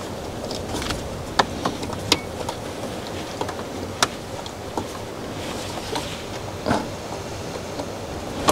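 Scattered small clicks and knocks of air-brake line fittings being handled and fitted back onto the truck's air lines by hand, with a short rattle about two-thirds of the way through, over a steady background hiss.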